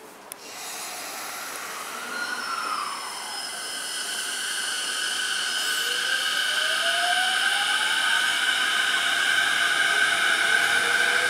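Electric train growing steadily louder along the station platform, with steady high-pitched squealing and a whine that rises in pitch over the second half.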